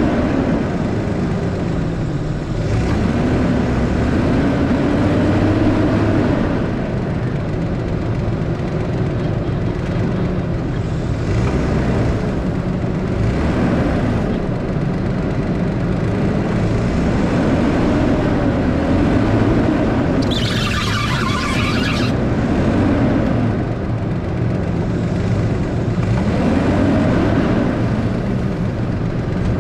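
Nissan Frontier pickup's engine revving up and down repeatedly as it crawls through deep snow. About two-thirds of the way through comes a brief hiss.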